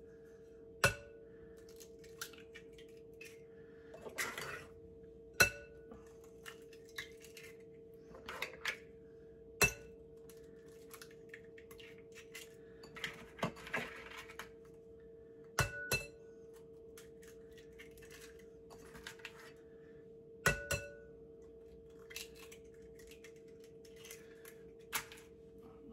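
Eggs being cracked one after another on the rim of a mixing bowl: about six sharp knocks, one every four to five seconds, each with a brief ring from the bowl, some as a quick double tap, with softer crackling of shells being pulled apart between them. A steady faint hum runs underneath.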